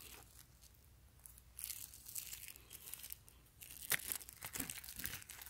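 Clear plastic wrapping crinkling faintly in irregular bursts as a pair of reading glasses is handled in it, with a sharper crackle about four seconds in.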